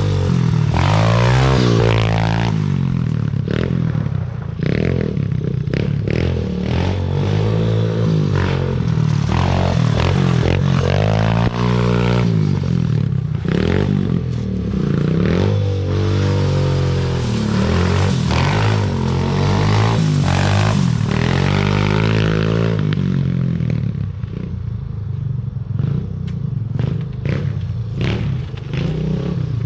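Small motor vehicle's engine running, its pitch rising and falling over and over as it is revved and eased off, with some clattering and scraping. It settles down to a lower, steadier run for the last few seconds.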